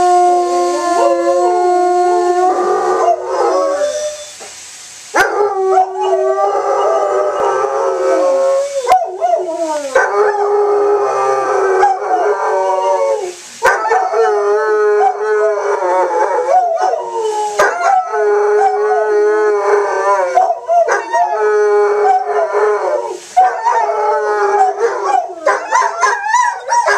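An eight-month-old dog howling, one long drawn-out howl after another with short breaks between them, the later howls wavering up and down in pitch. By the owner's account it is howling out of boredom.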